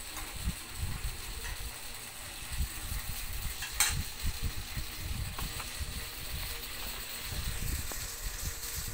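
Rubbing and bumping handling noise from a handheld phone being moved, with a few light clicks, the sharpest about four seconds in.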